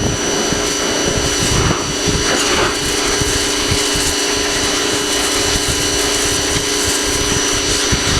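Pressure washer running steadily with a constant motor hum and whine, spraying water.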